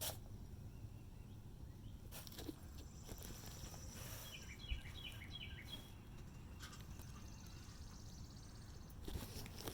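Faint outdoor background with a bird giving a quick series of short chirps about four to six seconds in, and a few light ticks.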